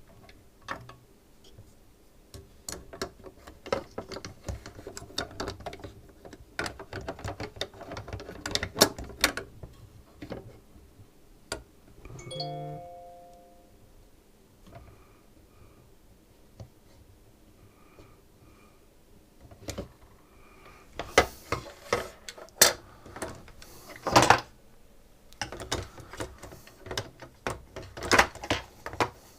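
Irregular clicks, taps and knocks of small parts being handled while a SodaStream carbonator is worked on, busiest near the start and again in the last third. About twelve seconds in comes a short ringing chime.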